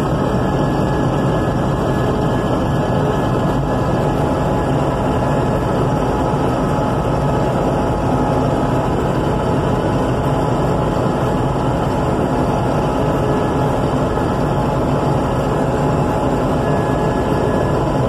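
Steady drone of a combine harvester's engine and threshing machinery running at work, heard from inside its cab.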